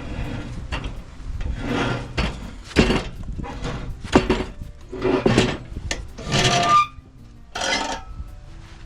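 Wood scraping and knocking in a run of short, irregular strokes, like timber being slid and handled.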